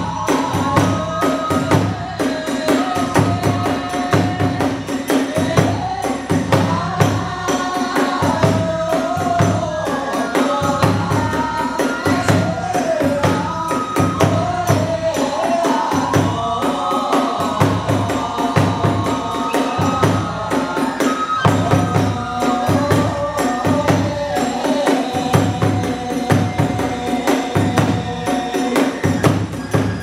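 Hiroshima kagura hayashi music: taiko drums beating a steady driving rhythm, tesarigane hand cymbals clashing brightly with them, and a high bending melody line above.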